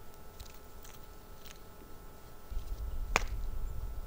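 Stones being set down in a ring on dry dirt for a fire pit: a few light clicks and scrapes, then one sharp knock of stone on stone about three seconds in. A low rumble comes in about halfway.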